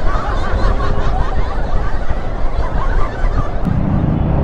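Wind buffeting a helmet-mounted microphone over the running engine of a moving motorcycle; a steadier low engine hum strengthens near the end.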